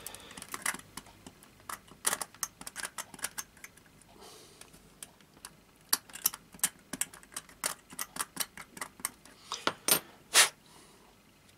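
Scalpel blade picking and scraping bits of melted plastic out of the underside of a plastic Parkside Dundas 21-ton hopper wagon, heard as a run of small irregular clicks and scratches with one louder click near the end.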